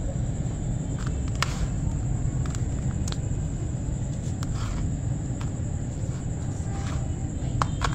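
Hands stirring and crumbling wet wood ash in a tub of water, with a few small clicks and crackles over a steady low rumble and a faint high whine.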